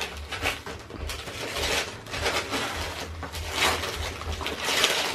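Christmas wrapping paper being torn and crumpled off a present by hand: a run of crackly rips and rustles in several bursts, the loudest near the end.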